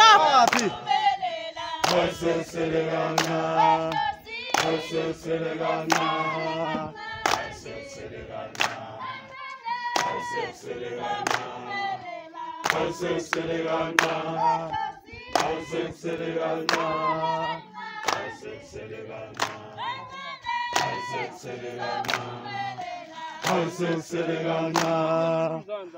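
A group of protesting workers singing a protest song in harmony. Their held phrases alternate with a single leading voice, over a steady sharp beat.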